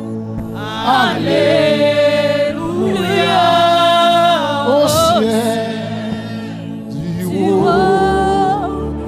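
Women worship singers singing a slow gospel worship song into microphones, in phrases of long held notes with vibrato, over steady held chords.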